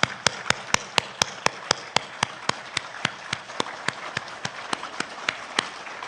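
A crowd clapping in unison, a steady beat of about four claps a second. The claps grow fainter over the last couple of seconds and stop near the end.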